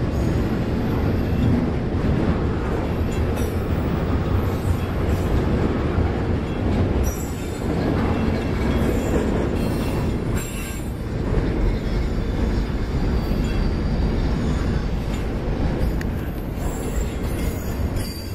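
Double-stack intermodal container cars rolling past on steel wheels, a steady, loud rumble of wheels on rail, with thin wheel squeal rising at times.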